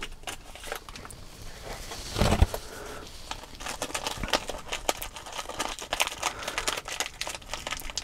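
A small plastic parts bag crinkling and rustling as fingers dig tiny ball bearings out of it, with light clicks of the bearings against each other. There is one louder thump about two seconds in.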